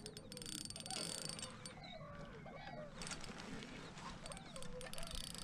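Fishing reel clicking in quick bursts as a hooked fish is fought, about a second at the start and again near the end, with faint short wavering calls in between.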